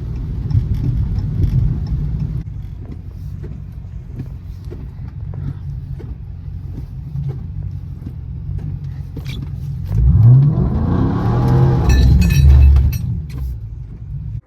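Chrysler 300C's V8 running low and steady, with the turn signal ticking about one and a half times a second. About ten seconds in, the engine revs up hard as the car accelerates, then eases off, and the sound cuts off suddenly at the very end.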